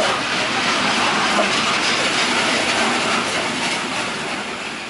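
A train running along the rails below, a steady noisy sound of wheels on track that begins to fade in the last second or so as the train draws away.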